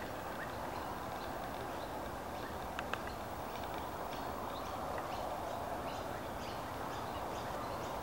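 Many birds calling: short high chirps scattered throughout, with one brief louder note about three seconds in, over a steady background rush.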